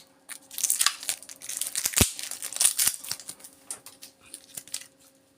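Tape and insulation being torn and worked off the copper windings of a small power-adapter transformer, crinkling and crackling in irregular bursts, with one sharp knock about two seconds in.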